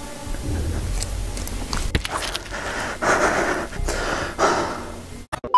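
A young man breathing heavily, with a few loud, breathy exhalations in the second half.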